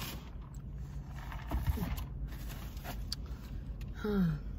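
Steady low hum inside a car, with soft rustling in the first second. About four seconds in comes a short falling vocal sound from a woman, like a brief 'mm'.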